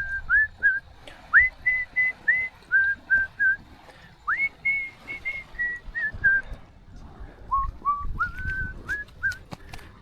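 A person whistling a tune in short, clear notes that step up and down in pitch, with a short break about seven seconds in.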